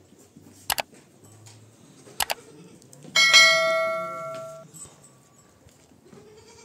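Subscribe-button animation sound effect: two quick mouse clicks about a second and a half apart, then a bright notification-bell ding that rings out and fades over about a second and a half.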